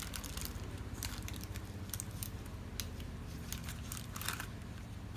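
Wax paper crinkling and rustling, with scattered light clicks, as it is folded over a veggie burger patty and pressed in a burger press. A steady low hum runs underneath.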